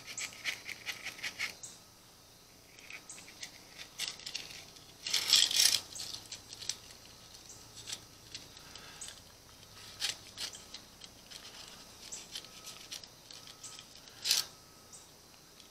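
Thin ridged jet-cleaning wire scraping and clicking inside the fuel ports of a Briggs & Stratton small-engine carburetor, filing gunk out of them. Faint scratchy rubbing with small ticks, a louder rasp about five seconds in, and a sharp click near the end.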